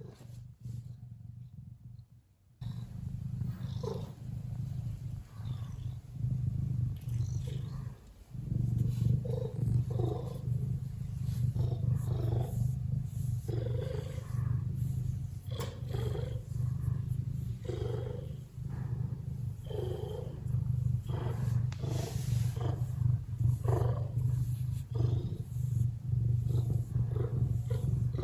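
Ragdoll cat purring close to the microphone: a loud, steady low rumble that starts a couple of seconds in and breaks off briefly about eight seconds in. Purring like this is a sign of a relaxed, contented cat.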